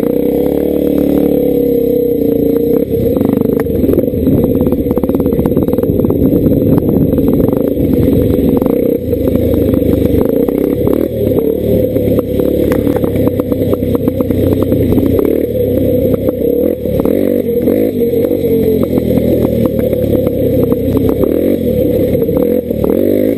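Dirt bike engine running under way on a rocky trail, its pitch rising and falling with the throttle, over a constant clatter of knocks from stones and the bike's parts on the rough ground.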